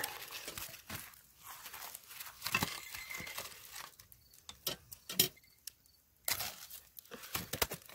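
Burning, charred wood pieces being set with metal tongs onto the lid of a cast iron Dutch oven: irregular clicks, knocks and scraping crackles of wood and embers on iron.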